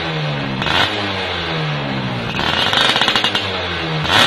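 Yamaha F1ZR two-stroke moped engine through an aftermarket AHM Malaysia racing exhaust, revved in repeated throttle blips on its stand, the revs falling back after each. There is a short loud crack about a second in and another near the end, and a harsher, higher-revving rasp from about two to three and a half seconds in.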